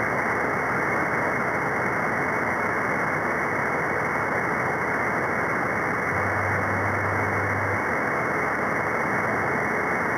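Steady static hiss from a CB radio receiver tuned to an open channel in the free band above channel 40, with no station transmitting. A faint low hum comes in about six seconds in for about a second and a half.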